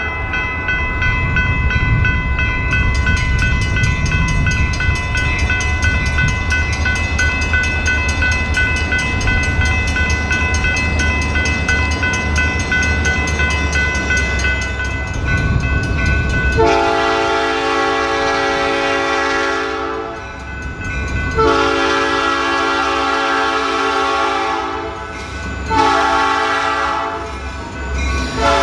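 A grade-crossing bell rings steadily over the low rumble of an approaching EMD GP40-2 diesel locomotive. About 17 seconds in, the locomotive's air horn sounds a sequence of blasts: two long, then a shorter one with another starting at the end, the horn signal for a road crossing.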